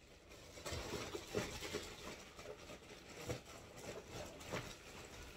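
Faint rustling with scattered light knocks and taps, the sound of things being handled and moved about.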